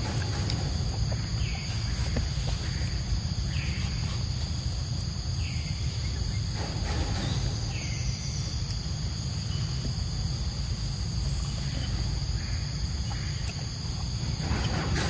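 Forest ambience: a steady high drone of insects over a steady low rumble, with a short falling call repeating about every two seconds through the first half.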